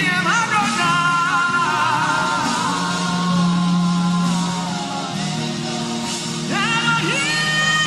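Slow gospel worship music: sustained low chords under a voice singing wordless, gliding melodic lines, with an upward vocal swoop near the end.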